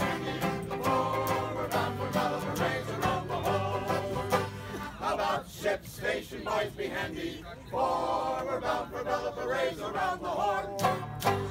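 A group of men singing a sea shanty together, with an accordion and a banjo playing along. The accordion's low held notes drop out about halfway, and the singing thins briefly before the voices come back.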